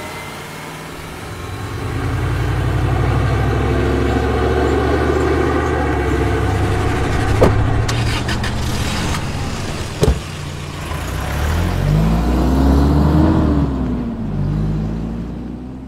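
Motor vehicle engine pulling away and driving, with two sharp knocks partway through. About twelve seconds in the engine revs up and then eases off, and the sound fades near the end.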